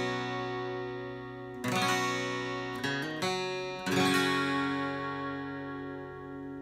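Gopher Wood 820 acoustic guitar (solid spruce top, solid rosewood back and sides), freshly strung with BlackSmith AAOT carbon-coated strings, strummed in chords. A few strums come about two, three and four seconds in, and the last chord is left ringing and slowly fades.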